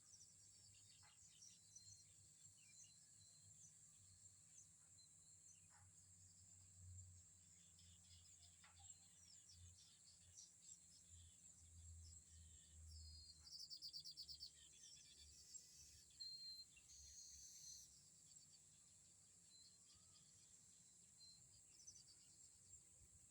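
Faint chirping of small birds, with a rapid chattering trill about 14 seconds in, over a steady high insect drone. Low gusts of wind rumble on the microphone now and then.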